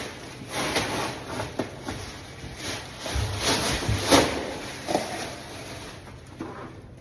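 Irregular scraping, rubbing and knocking of objects being handled, with a sharper knock about four seconds in.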